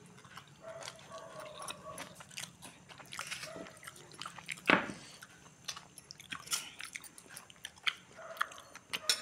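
Close-up chewing of a mouthful of chicken noodles, with small clicks of a steel spoon on a steel plate. One sharp knock about halfway through is the loudest sound.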